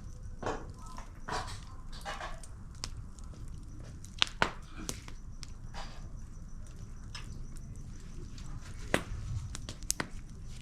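A dog barking a few times, with several sharp clicks or knocks and a steady low rumble underneath.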